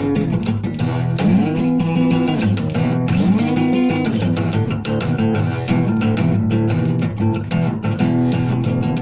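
Guitar music with a bass line: plucked and strummed notes, with two long notes about one and three seconds in that bend up and back down.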